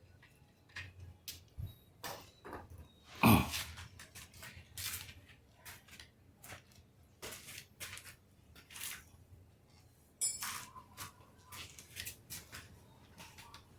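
Metal hand tools and parts clinking and knocking while a motorcycle swingarm is being worked on. The taps come irregularly, with one louder knock about three seconds in.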